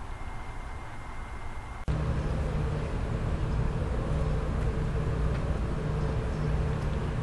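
Quiet room tone with a thin steady high tone. About two seconds in it cuts abruptly to louder outdoor background noise: a steady low hum and rumble.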